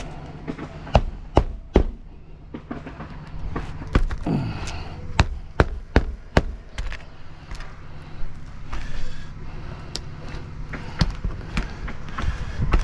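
Hammer driving roofing nails into a shingle, with sharp separate strikes: three close together about a second in, a run of four or five starting about four seconds in, and a few more near the end. A steady low rumble runs underneath.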